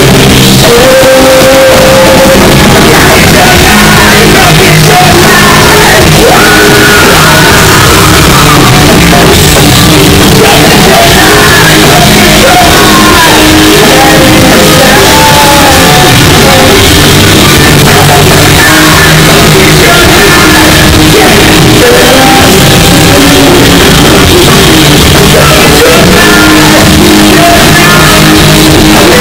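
Rock band playing live at full volume: distorted electric guitar and drums under a male singer shouting and singing into a microphone. The recording is so loud that it sits at full level and clips throughout.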